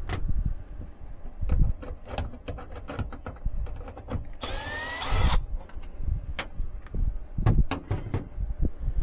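Hands-on work at an air handler: scattered knocks and clicks of parts and tools being handled, with one brief rasping burst a little past halfway.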